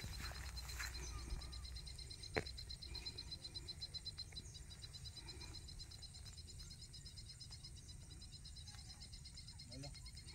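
Insects trilling steadily in a fast, even, high-pitched pulse over a low rumble, with a single sharp click about two and a half seconds in and faint voices near the end.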